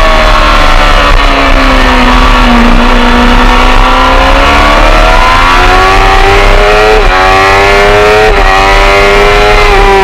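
Racing motorcycle engine heard from on board: the revs fall over the first few seconds as it slows, then climb steadily under acceleration. The rise is broken twice, about seven and eight and a half seconds in, by a sudden short dip in pitch, a clutchless quickshifter upshift where the ignition is cut for a moment.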